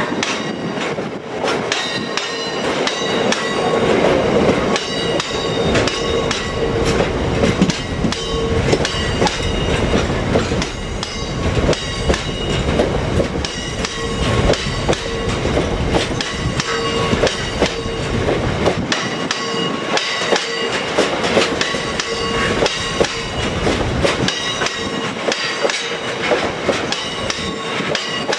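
A freight train of open box aggregate wagons rolling steadily past, with wheels clicking and clattering over the rail joints. Steady high squealing tones from the wheels ring over the rumble.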